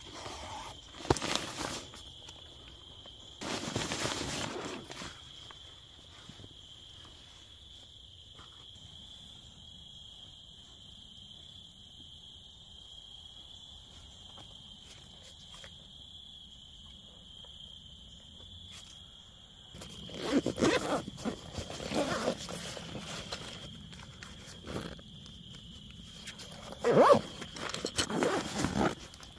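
A nylon backpack and its pouches being handled and rustled, in short bursts about one and four seconds in, then a denser run of rustling and sharp scrapes over the last nine seconds. A steady high insect trill runs underneath throughout.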